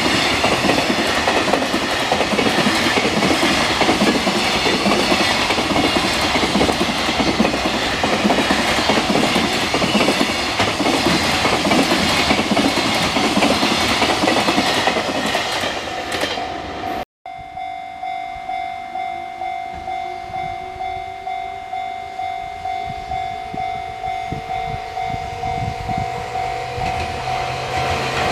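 A train passing over a level crossing, with loud rolling wheel and rail noise. After a sudden break about two-thirds through, the crossing's warning bell dings steadily about once a second, while a rising whine and rumble of the next approaching train builds near the end.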